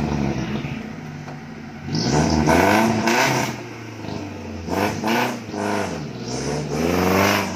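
Off-road 4x4's engine revved hard on a steep dirt hill climb: three rising revs, about two seconds apart, over lower running in between.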